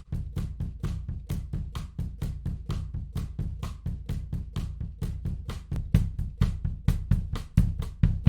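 Drum kit recording playing a busy groove of kick, snare, hi-hat and cymbal hits, run through a tape emulation plugin. It drops out for a moment at the very start, and the hits get louder about six seconds in.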